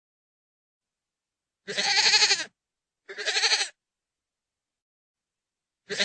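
Goat bleating: two wavering calls, one about a second and a half in and a shorter one about three seconds in, then a third starting just before the end, with dead silence between calls.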